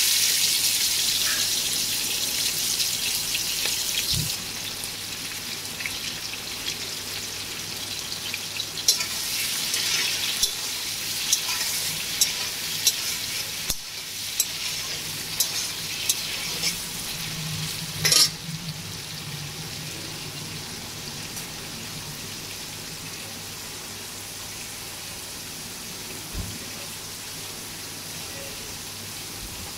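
Prawns frying in hot mustard oil in a large aluminium kadai: a steady sizzle, loudest just after they go in and slowly dying down. A spatula stirs them, with a run of clicks and crackles between about 9 and 18 seconds and one louder knock near 18 seconds.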